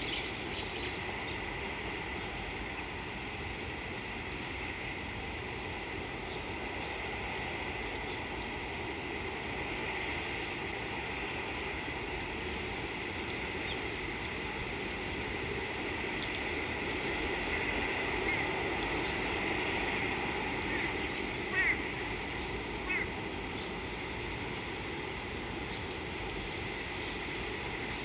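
Bush ambience: a short, high chirp repeated roughly once a second over a steady high insect drone.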